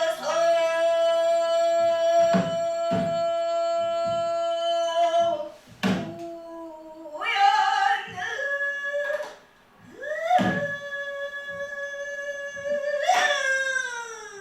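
A pansori singer holding long, drawn-out sung notes that waver and slide between pitches, with a few gaps for breath. Under the voice come sparse low strokes of a buk barrel drum.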